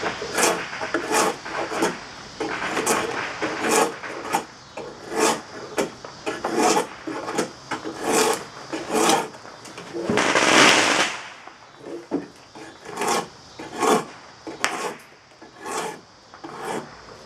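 Drawknife shaving a green black locust hatchet handle blank, taking off the sapwood: a run of short scraping strokes, roughly one a second, with one longer, louder stroke about ten seconds in.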